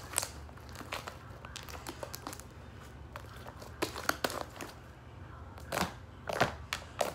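White fluffy slime made with shaving cream being stretched, pulled and pressed by hand, giving irregular squishy pops and crackles. The crackles bunch up about four seconds in and again near the end.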